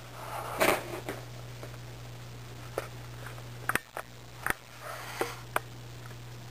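A kitten leaps from a plastic step stool up onto a bed, with a brief loud rustle of bedding about half a second in, then a scatter of light taps and clicks as it moves about on the bedspread. A steady low hum runs underneath.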